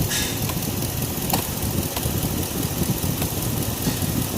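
A pickup truck engine idling steadily, heard from inside the cab, with a few light clicks over it.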